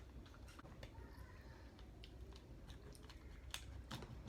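Faint, irregular clicks and small cracks of scissors snipping into crab-leg shell, with a few sharper snips near the end.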